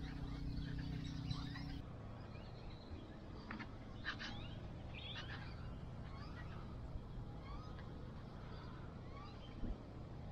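Scattered short bird chirps and calls over quiet outdoor ambience. A low steady hum cuts off about two seconds in, and there is a soft knock near the end.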